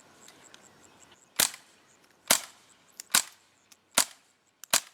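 Five suppressed shots from a .22 LR Savage rifle fitted with a Tactical Solutions suppressor, each a short, sharp crack, about one a second. They begin a little over a second in.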